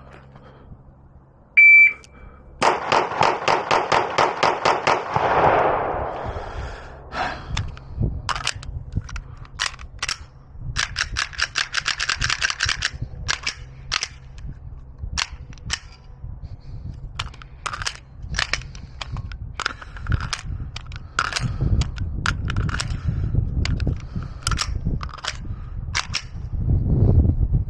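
A shot timer beeps once, then pistol gunfire follows: fast, evenly spaced strings of shots and many separate shots.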